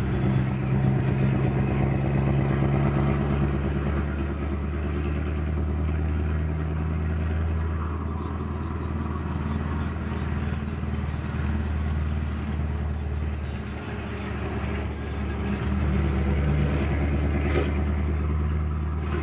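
Scania 164L 480's V8 diesel engine running as the truck drives along, heard from inside the cab. It gets louder about a second in, eases off a little about two-thirds of the way through, then picks up again.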